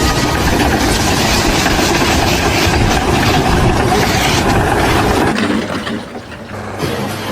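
Loud, dense mechanical rumble, which cuts off suddenly about five seconds in, giving way to a quieter, steady low engine hum.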